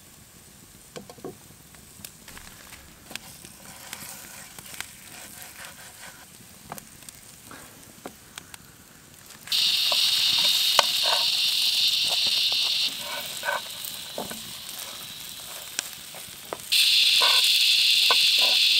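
Cauliflower and tortillas frying in oil in a pan over a campfire. At first there are only faint crackles and scrapes of the spatula. About halfway a loud, steady sizzle cuts in; it drops back for a few seconds and comes in loud again near the end.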